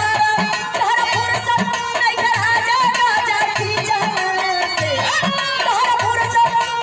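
A woman singing a Bhojpuri folk song live through a microphone and PA, with instrumental accompaniment and a hand drum keeping a steady beat.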